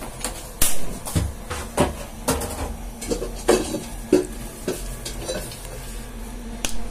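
Irregular knocks and clinks of pots and kitchen things being handled around a gas stove, some with a short metallic ring.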